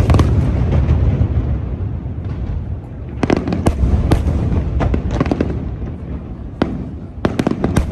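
Fireworks display: aerial shells bursting in rapid clusters of sharp bangs over a continuous low rumble, with a short lull about two-thirds of the way through before another quick run of bangs.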